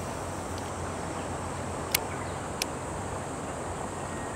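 Steady outdoor noise of wind and moving water, with two short sharp clicks about two seconds in and again just after.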